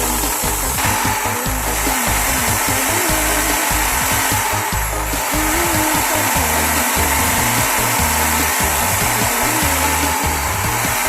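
Electric drill running steadily as the motor of a homemade wood lathe, with a tool rubbing against the spinning wood. Background music plays underneath.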